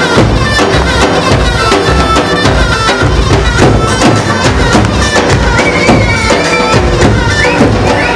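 Traditional Albanian folk dance music, loud and steady: a drum beats a quick, even rhythm under a wind-instrument melody.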